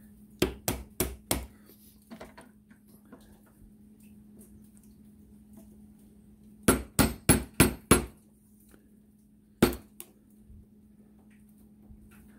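Hand-hammer taps ringing on a steel punch held against a stuck bearing on the handlebar spindle of a 1973 Moto Guzzi Eldorado: four quick taps about half a second in, a run of five about seven seconds in, and a single tap near ten seconds. The bearing is seized on the spindle and is not coming off easily.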